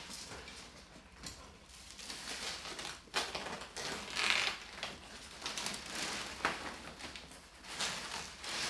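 Thin plastic dust sheet rustling and crinkling as it is pulled off the wall and bunched up, its tape peeling away, with a sharp click about three seconds in.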